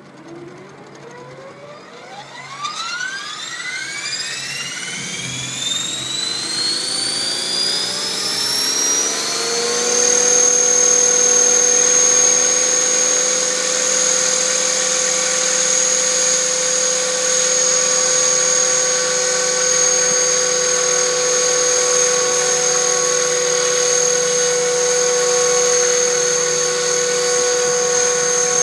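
Radio-controlled 500-size scale Huey helicopter spooling up: the whine of its motor and rotor rises steadily for about ten seconds, then holds at a steady high pitch at head speed.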